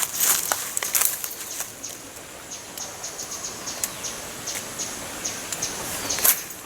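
Crackling rustle for about the first second and a half, then scattered light ticks over a faint steady high-pitched buzz, with one sharper crackle near the end.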